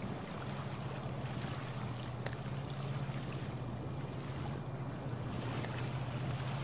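Steady low drone of a large cargo ship's engine passing across the river, with wind noise on the microphone.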